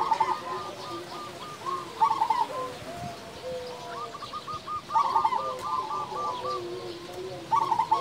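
Zebra doves (perkutut) cooing: rapid strings of short staccato coos, with a louder burst every two to three seconds and lower drawn-out notes from more than one bird overlapping.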